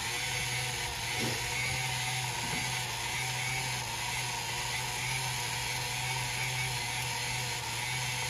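Toma M900 35mm camera's built-in film motor running steadily as it rewinds the finished roll of film back into its cassette.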